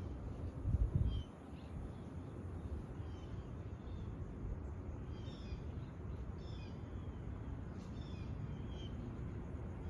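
Birds calling with short high chirps, several of them falling in pitch, repeated through the middle and later part, over a steady low rumble; a brief louder low blast of that rumble comes about a second in.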